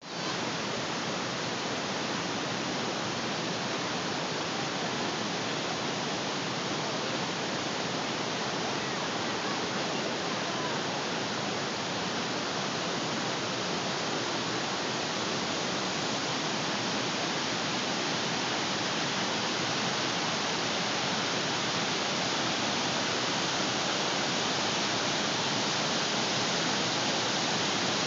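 Steady rush of whitewater from the Linville River's falls and cascades pouring through a rock gorge. It grows slightly louder toward the end.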